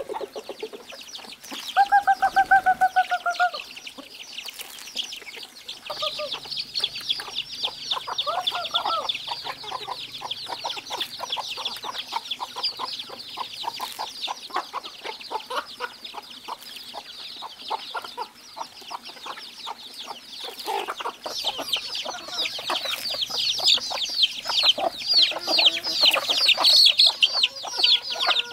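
A flock of chickens feeding on scattered corn. Chicks cheep in a rapid, constant stream while hens cluck, with a short run of clucks about two seconds in. The cheeping grows louder near the end.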